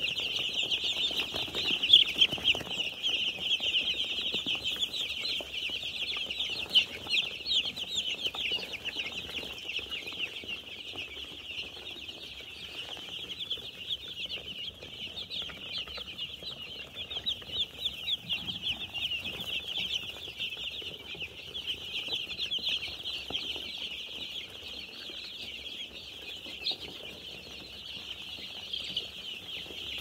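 A large flock of five-day-old broiler chicks peeping: many high, overlapping chirps without a break.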